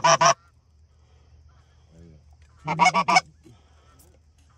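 Goose honking in quick, even runs of clucks, about six a second: one run ends just after the start, and another of about five honks comes about three seconds in.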